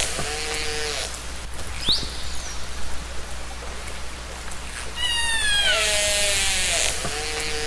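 Killer whale (orca) calls recorded underwater: a pitched call with harmonics at the start, a short rising whistle about two seconds in, then a long falling call about five seconds in and another short call near the end, over a steady hiss of water noise.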